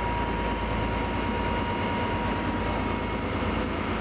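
Boat engine running steadily: a low, even drone with a faint high whine.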